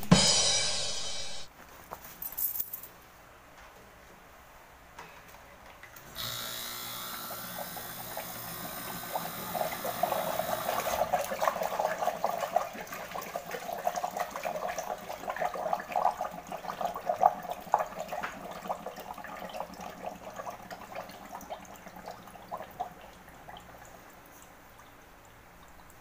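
A refrigeration system is being flushed with R-141b: gas and flushing agent blow out of the hose into a bucket of water. There is a brief hiss at the start, then a louder hiss about six seconds in, followed by a long stretch of bubbling and churning water that fades near the end. The flush drives out oil that is clogging the system.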